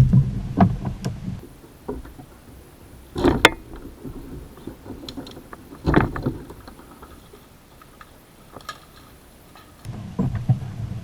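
Kayak paddle strokes: the blade dips and splashes in the water every few seconds.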